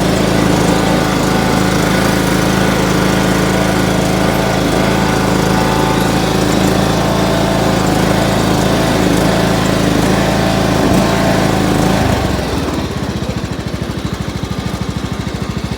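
Riding lawn mower's engine running steadily, then about twelve seconds in it drops to a lower, quieter speed with a rapid, even pulsing.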